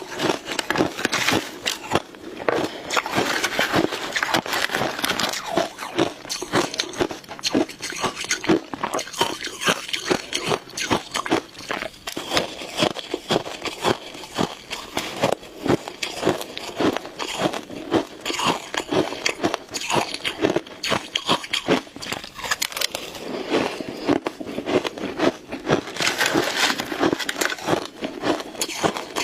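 Shaved ice being bitten and chewed, a dense, continuous run of crisp crunches and crackles.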